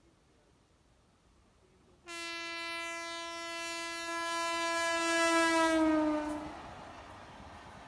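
Horn of an Indian Railways electric locomotive sounding one long blast, starting suddenly about two seconds in as the train approaches at speed. The blast grows louder and then drops in pitch as the locomotive passes. The rushing noise of the passing train follows.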